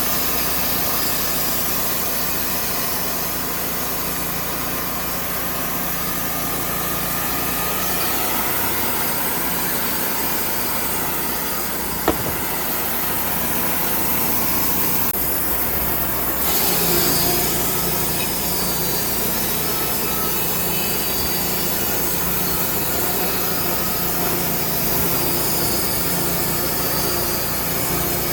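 Portable band sawmill running: its engine held steady under load while the band blade cuts through a log, with one sharp click about twelve seconds in.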